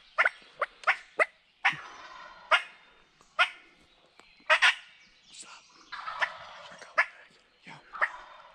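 Wild turkeys calling close by: a run of short, sharp calls coming every few tenths of a second at an uneven pace.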